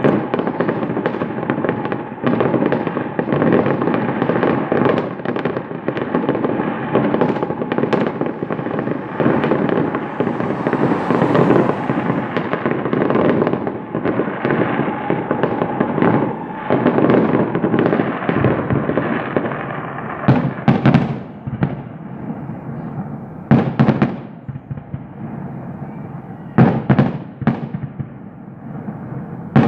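Fireworks going off: a dense run of overlapping bangs and crackling for most of the first two-thirds, thinning to a handful of separate loud bangs.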